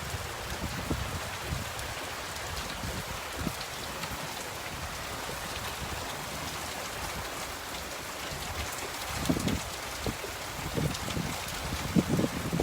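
Steady rain falling: an even, continuous hiss of rain on surfaces, with a couple of brief, louder low sounds about nine and twelve seconds in.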